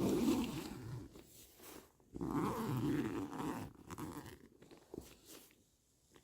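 Border collie making low rumbling growl-like grumbles in two spells, the second starting about two seconds in.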